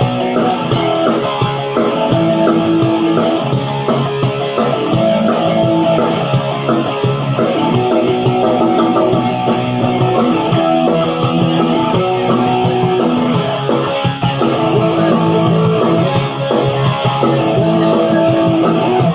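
Electric guitar played through a Line 6 Spider V30 amplifier on a rock tone, with held chords and notes changing continuously.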